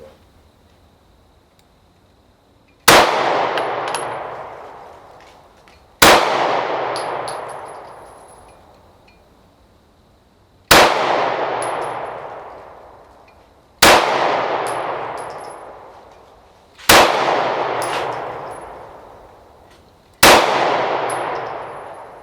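Six slow, deliberate shots from a Beretta Nano striker-fired compact pistol, spaced about three to four seconds apart. Each sharp crack is followed by a long ringing decay.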